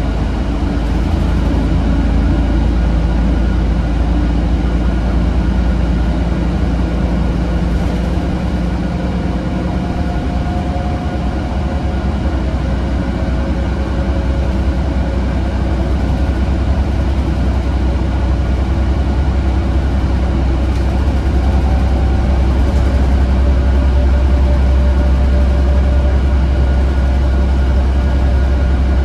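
Inside a city transit bus under way: a steady low engine rumble with road and tyre noise, a little louder in the second half.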